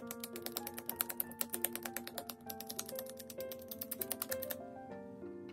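Small cleaning wipe rubbed quickly back and forth over the glass screen of an iPhone 13 Pro Max, giving a fast run of short scratchy strokes, about ten a second, that stops about four and a half seconds in. Soft background music plays underneath.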